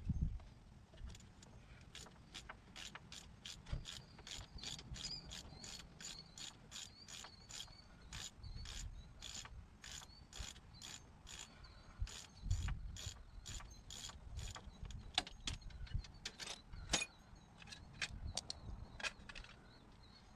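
Hand socket ratchet clicking steadily, about three clicks a second, as a nut on the Jeep's front steering knuckle is turned, with a few dull knocks in between.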